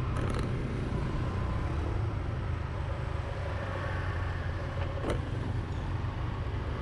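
Honda XR150 single-cylinder motorbike riding through city traffic: a steady low engine rumble mixed with wind buffeting on the microphone. Brief clicks come near the start and about five seconds in.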